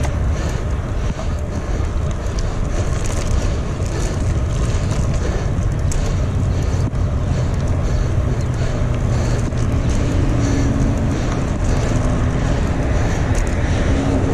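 Wind rushing over the microphone of a camera on a moving bicycle, a steady low rumble with road noise. A low engine hum from a vehicle joins in the latter part.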